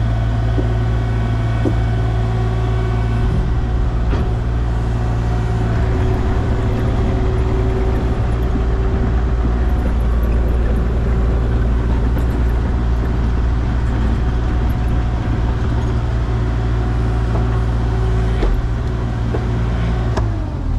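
Engine of a piece of excavation machinery running steadily, with a slight change in its pitch about four seconds in.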